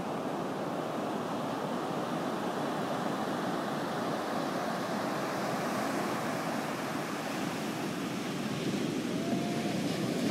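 Ocean surf breaking and washing up a flat sand beach, a steady rushing wash that swells a little louder near the end as a bigger wave breaks.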